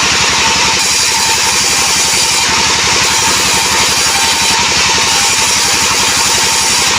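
Engine-driven band sawmill running steadily while cutting albasia wood: a constant engine drone with a fast, even pulse under the hiss of the blade.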